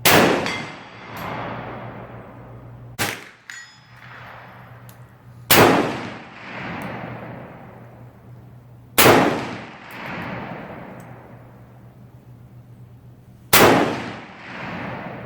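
SKS rifle firing four slow single shots of 7.62×39 mm Chinese surplus ammunition, several seconds apart, each with a long ringing, echoing tail. Two smaller sharp cracks come about three seconds in.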